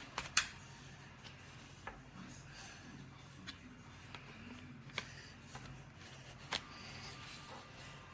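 Quiet background with a few scattered light clicks and taps, the sharpest pair right at the start and others about two, five and six and a half seconds in.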